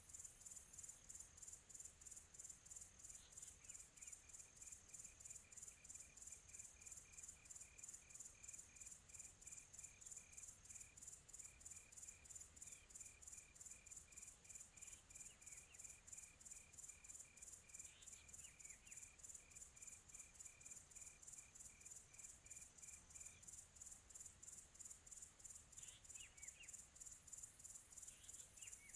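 Faint, steady, high-pitched pulsing of crickets chirping in a tropical afternoon ambience. A second, lower, evenly pulsed chirping joins about four seconds in and stops a little past two-thirds of the way through, and a few brief chirps come near the end.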